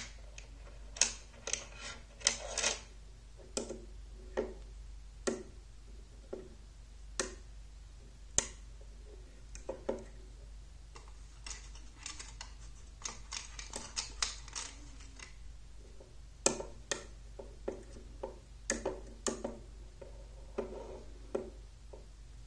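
Magnetic rods and steel balls of a magnet construction set clicking together as they snap into place, in irregular sharp clicks about once a second. Around the middle comes a quicker run of clicks as steel balls are picked out of a metal tin.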